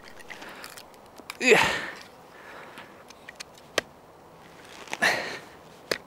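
The tip of a Schnitzel DU knife, a Sandvik 14C28N steel blade, being twisted and levered into hard wood as a tip-strength test, giving a few sharp clicks and cracks. Two loud sniffs through the nose, about one and a half and five seconds in, are the loudest sounds.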